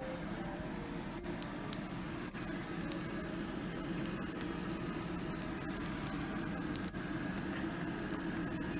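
An egg frying in oil in a nonstick frying pan: a steady sizzle with many small scattered pops and crackles.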